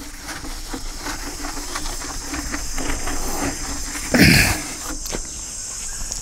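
Chalk being wiped off a blackboard: a run of short rubbing and scuffing strokes, then a louder, short noisy burst about four seconds in.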